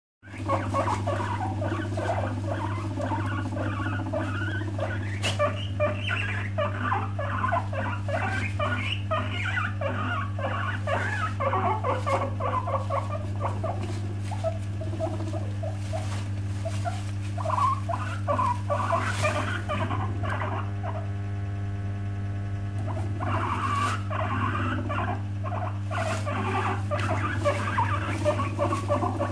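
Guinea pigs calling in a fast, broken run of short chattering and rumbling sounds with scattered sharp clicks. The calls pause briefly after the middle and pick up again near the end, over a steady low electrical hum.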